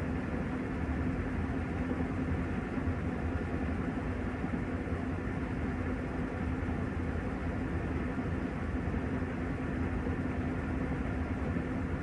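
Panasonic top-loading washing machine with its tub spinning at speed in the spin cycle: a steady motor hum over a low rumble, unchanging throughout.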